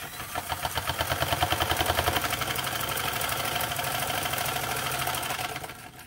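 Restored Singer 15 sewing machine running under power, stitching a straight seam: a fast, even clatter of needle strokes that builds up over the first second, holds steady, then dies away near the end as the power is released and the free-running machine coasts on.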